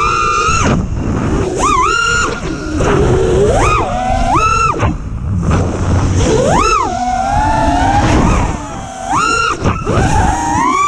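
FPV quadcopter's T-Motor brushless motors and fresh props on a 6S battery, whining in sharp bursts that rise and fall in pitch as the throttle is punched and cut, about five times, through flips and dives. Wind rush on the onboard GoPro runs underneath.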